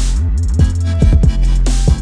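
Electronic dance music in a dubstep style, with heavy sustained bass, sweeping synth sounds and a steady beat.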